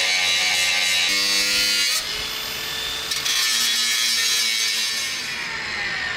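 Cordless angle grinder cutting through rusted steel nut heads, its motor whine shifting in pitch as the disc bites, then winding down in falling pitch from about five seconds in as the trigger is released.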